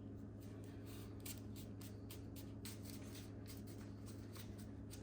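Faint rustling and light, irregular clicks of fingers working a new adhesive fabric screen mat into a Bose QC35 headphone ear cup, over a steady low hum.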